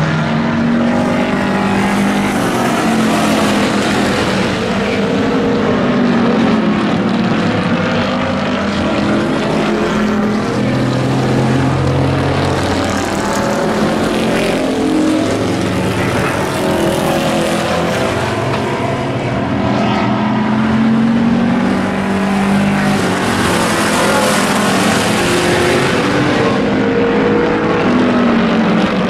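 Several race pickup trucks' engines running hard together as the pack laps the oval, their pitches rising and falling as they accelerate through the turns and pass by.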